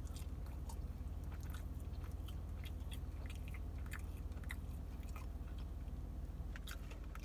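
A person biting and chewing grilled chicken, close to the microphone, with scattered small wet mouth clicks. A steady low hum runs underneath.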